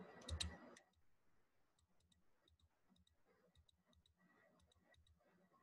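Near silence, with faint, irregular clicks of a computer mouse.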